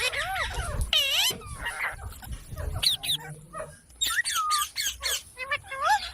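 Indian ringneck parrots (rose-ringed parakeets) squawking and chattering: many short calls in quick succession, each gliding up and down in pitch.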